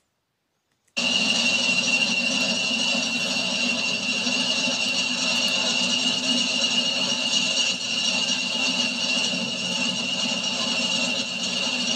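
English Electric Class 40 diesel locomotive's engine running steadily, with the high, steady turbocharger whistle that earned the class its nickname "Whistlers"; the sound starts suddenly about a second in.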